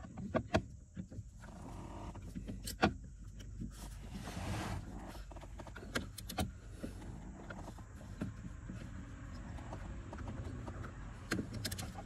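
Scattered clicks and rustling from a ratchet with a 10 mm socket being worked onto the accelerator pedal's top mounting nut. A brief scraping rustle comes in the middle, and a quick cluster of clicks comes near the end.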